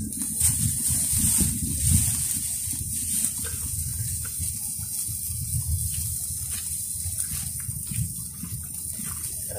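Uneven low rumble of wind on the microphone and sea surf, with a steady high hiss and scattered faint crackles from the charcoal grill.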